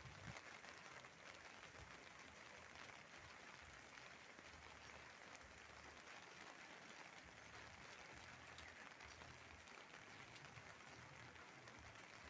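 Faint steady rain falling, an even hiss with no break.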